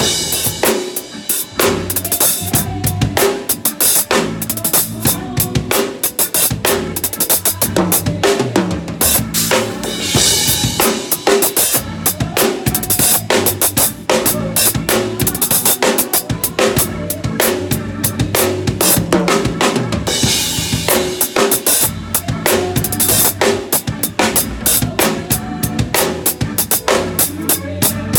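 Acoustic drum kit played to a gospel song: snare, bass drum and cymbals in a steady groove, with bigger cymbal crashes about ten and twenty seconds in. A pitched backing track of the song runs underneath.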